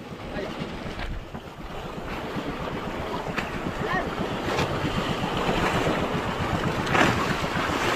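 Wind buffeting the microphone over the wash of sea water around a small fishing boat, a steady rushing noise that slowly grows louder.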